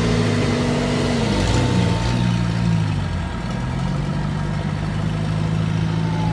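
Off-road 4x4 engine running close by. Its revs drop about a second and a half in, then it settles to a steady low-rev run.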